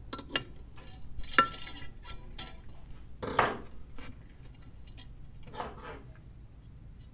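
Duckbill pliers and safety wire clicking and clinking against bolt heads. There are a few sharp clicks in the first couple of seconds, the loudest about a second and a half in, then two short scraping rustles.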